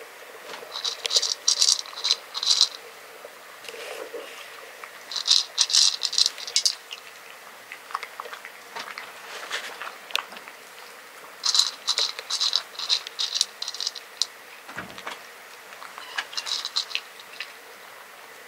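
A cat chewing dry kibble: rapid, crisp crunches in four main bouts of a second or two each, a few seconds apart, with single crunches in between.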